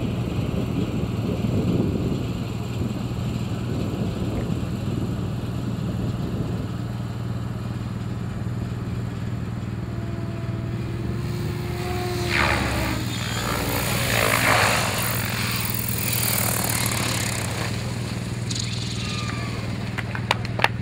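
Radio-controlled model helicopter running in flight, a steady drone with a louder, rushing stretch about halfway through.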